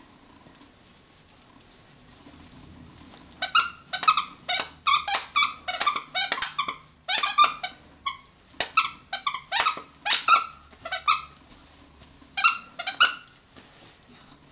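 A plush squeaky toy squeaking in a fast run, several squeaks a second, as a Jack Russell terrier bites and chews it. The squeaking starts about three seconds in, breaks off briefly, and ends with a last few squeaks near the end.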